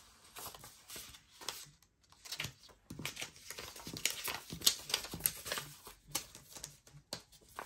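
Paper banknotes rustling, crinkling and snapping as they are handled, sorted and counted by hand: a string of short, crisp, irregular crackles. The notes are prop money.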